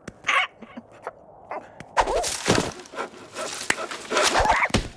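Wordless cartoon soundtrack: animal-like character vocal noises and sound effects, a short one just after the start, then a busy, louder run of noisy bursts and short pitch glides from about two seconds in.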